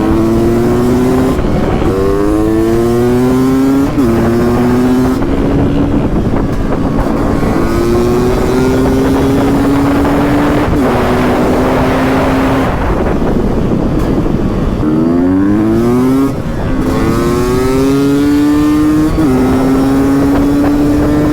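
Beta 300 two-stroke single-cylinder motorcycle engine pulling hard, its pitch climbing steeply and then dropping abruptly at each gear change, about half a dozen times, with short lulls as the throttle is eased.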